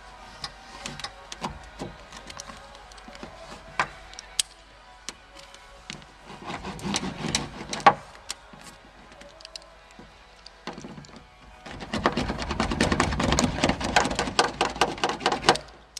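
Self-adhesive sound-deadening sheet being pressed and rubbed onto a car's inner door panel: scattered taps and crinkles, then brisk, rapid rubbing from about three-quarters of the way in. Faint background music plays underneath.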